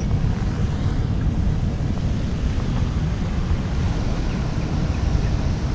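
Wind buffeting the microphone of a head-mounted action camera: a steady low rumble with no other distinct sound.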